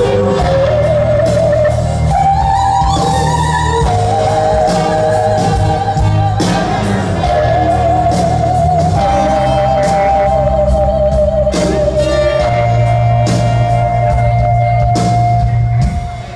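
Live band music with a male voice singing long, wavering held notes over sustained low chords and drums. The music drops away near the end.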